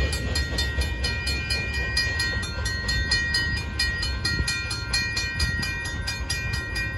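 Railroad grade-crossing bell ringing with rapid, evenly spaced strikes while the crossing signals are still active after the train has cleared, over a low rumble.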